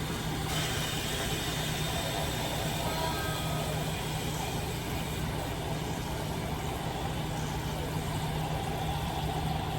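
Water running steadily into a cooking pot as it is filled, with a steady low hum underneath.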